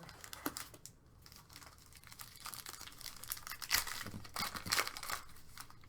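Foil trading card pack wrapper being torn open and crinkled, a dense crackling that is loudest in the second half.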